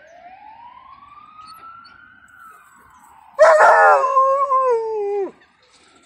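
A faint ambulance siren wailing, its pitch rising and falling slowly. About three and a half seconds in, an Alaskan Malamute answers it with one loud howl lasting about two seconds, sliding down in pitch at the end.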